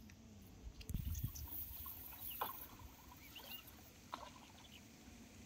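Faint water sloshing and light splashing from a man swimming and another wading through a shallow pond, with a brief low rumble about a second in.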